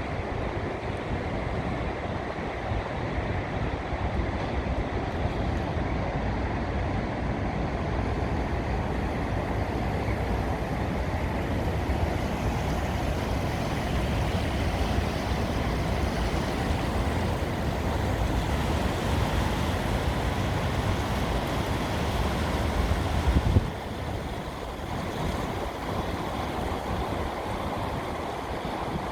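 Wind buffeting the microphone over a steady low rumble beside the river. The rumble drops away suddenly about two-thirds of the way through, leaving a softer steady noise.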